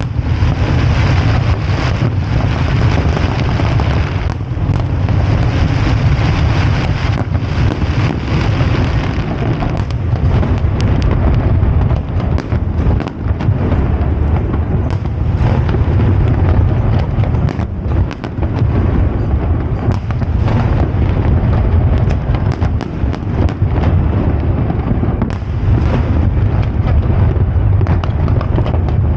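Aerial fireworks display in full barrage: a continuous run of overlapping bangs and crackles with no real pause.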